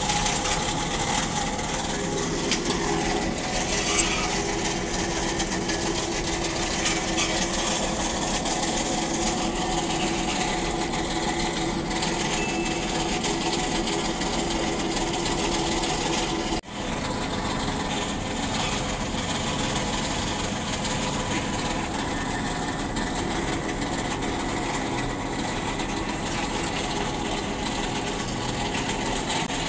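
Steady mechanical hum of a small motor with a constant hiss over it, cutting out for an instant a little past halfway.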